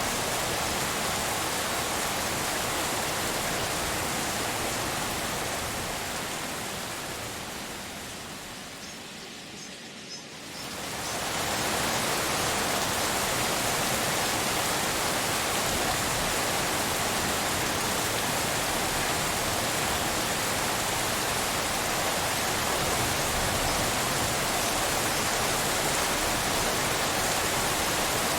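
Steady rain, an even hiss like pink noise. It fades down over a few seconds about a third of the way in, then quickly comes back to full level and holds steady.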